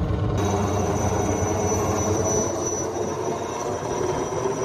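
Helicopter flying overhead: steady rotor and engine noise, with a high whine that comes in shortly after the start.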